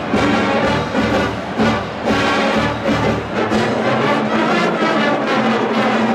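Marching band playing, brass carrying the tune over a steady drum beat.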